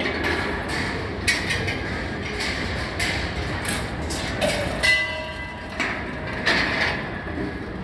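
A large rolling-ball machine running: metal balls rolling along wire tracks with a steady rumble, and repeated clicks and knocks as they drop and strike parts. About five seconds in, a bell-like chime rings for about a second.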